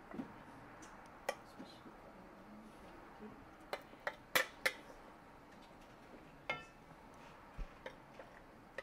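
A spoon clinks and scrapes against a ceramic dish and a metal pot as grated banana dough is scooped out and dropped into the pot in lumps. The light clinks are scattered, bunched near the middle, and one about two-thirds of the way in rings briefly.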